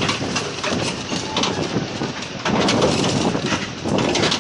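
Ride noise aboard a tourist mini road train: the carriage rattles and clatters with frequent irregular knocks over a steady running noise.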